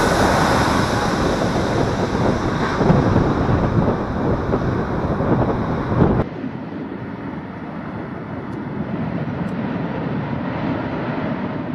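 Loud jet noise of an Airbus A320neo passing low overhead on landing, with wind buffeting the microphone. About six seconds in it cuts off abruptly to a quieter, duller steady jet engine sound from the plane farther off on the runway.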